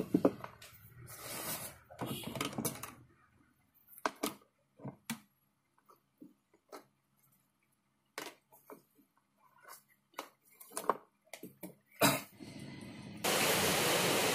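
Scattered light clicks and knocks of wires and small electrical parts being handled on a workbench, with rustling in the first few seconds. Near the end a steady hiss starts abruptly.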